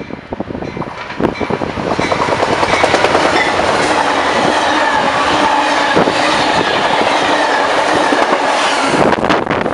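Amtrak passenger train passing at speed close by. The rush of wheels on rail builds over the first two seconds, then holds loud and steady with rapid clicks over the rail joints.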